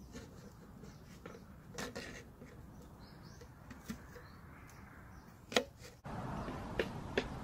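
A knife cutting food on a small wooden board: faint scattered taps, then a sharper tap near the end of the cutting. Then a campfire burns with a steady crackle and a couple of sharp pops.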